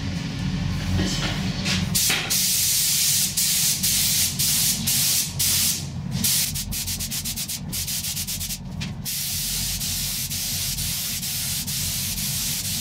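Gravity-feed spray gun hissing with compressed air as it lays a thin first coat of paint on plastic moldings, in bursts broken by short gaps as the trigger is pulled and released, then in longer steady passes. The first coat is sprayed at low pressure. A low hum runs underneath.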